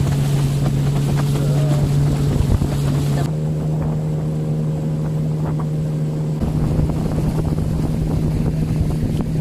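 Outboard motor of a wooden river longboat running steadily at cruising speed, with wind noise on the microphone.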